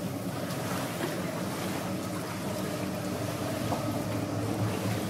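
Small boat's engine running steadily at low speed, a constant low hum with a faint hiss of water over it.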